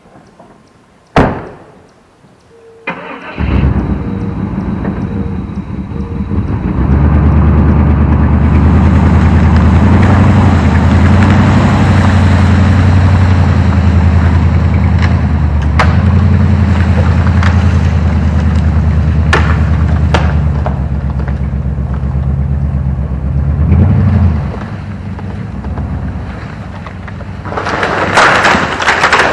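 Pickup truck door shutting with a knock, then the truck's engine cranks and starts about three seconds in and runs hard and steady under load as the truck drags on a line tied to a broken tree. Near the end, a loud crash of breaking branches as the tree comes down.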